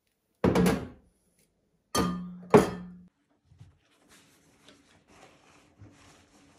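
Three loud knocks, each ringing briefly: one about half a second in and two close together around two seconds in, the last pair with a steady low hum under it. Then faint rustling of a paper towel being laid into a woven basket.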